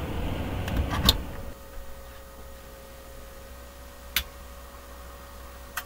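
A steady rushing noise with a few sharp clicks, the loudest about a second in, stops suddenly about a second and a half in. A faint steady hum remains. Single sharp clicks follow about four seconds in and near the end as the repaired SAF Presto 185 welding inverter is handled and switched on.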